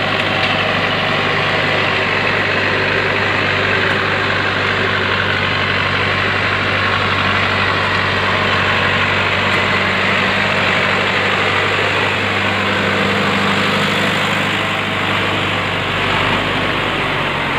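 Heavy log truck's engine running steadily with a low, even note as the truck drives slowly through deep mud close by.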